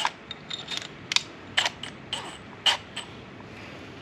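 Short, sharp metallic clicks from a drill and its bits being handled, about seven in the first three seconds, then a pause.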